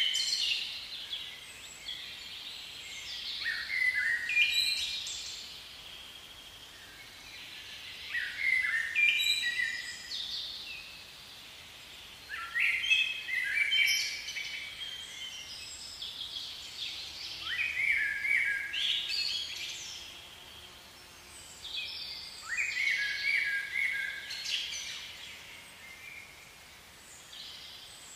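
A songbird singing short phrases of quick chirping, falling notes, one phrase roughly every four to five seconds, over a faint steady outdoor hiss.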